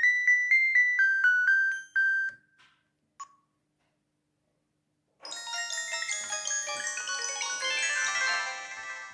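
LG B2050 mobile phone ringtones: a quick electronic melody of single bright notes ends about two seconds in, a short single beep follows, and after a pause of about two seconds a fuller ringtone with many notes sounding together starts and runs on.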